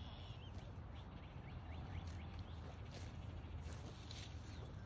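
Cattle grazing close by, tearing and cropping grass, with small birds chirping faintly and a low steady rumble underneath.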